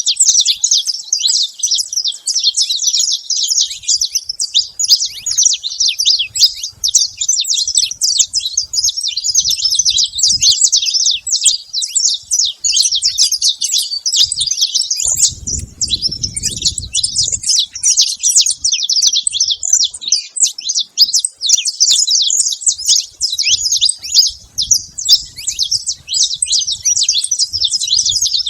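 Saffron finches chirping busily and without pause, many rapid high calls overlapping.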